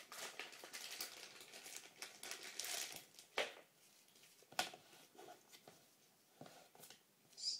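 Toy packaging crinkling and rustling as it is handled, dense for the first three seconds, followed by a few separate sharp clicks.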